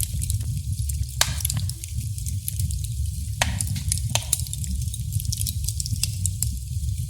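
Wood fire crackling: a steady low rumble and hiss with scattered sharp pops and ticks, the loudest pops about a second in and around three and a half seconds in.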